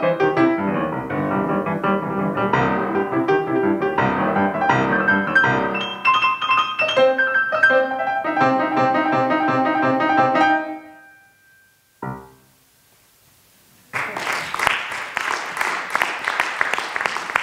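Grand piano played quickly with many rapid notes, stopping about eleven seconds in. One short, soft chord follows after a pause, then a brief silence, then audience applause begins about three seconds from the end.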